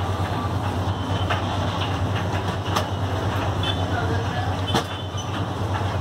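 A steady low hum, with a few sharp metallic clicks of hand tools working on a scooter's front wheel hub, the clearest about three seconds in and again near five seconds.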